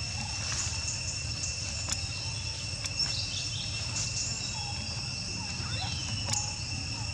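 A steady, high-pitched insect drone runs on without a break, with a few short, faint chirps and light clicks over it.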